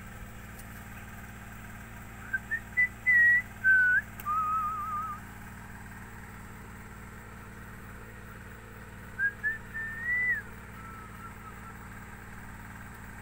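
A person whistling two short phrases of a tune, held notes stepping up and down with a quick warble, about two seconds in and again about nine seconds in, over a steady low background hum.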